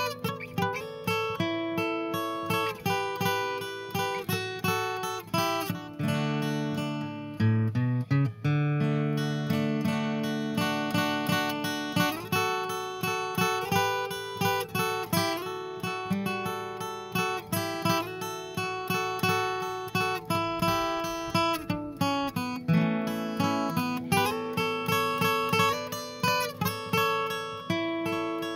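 Background music on acoustic guitar, a steady run of plucked notes and chords.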